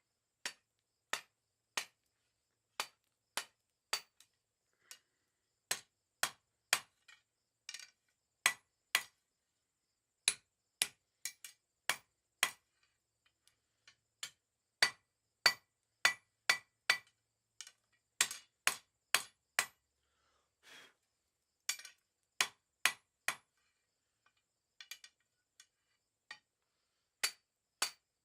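Hand hammer striking 1/2 inch mild steel round bar on an anvil: sharp ringing blows at an uneven pace of about one to two a second, in runs broken by short pauses.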